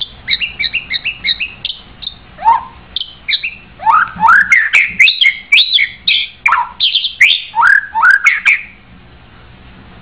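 White-rumped shama singing. It opens with a quick run of short repeated notes, then moves into a varied phrase of rising whistles broken by sharp clicks, and stops shortly before the end.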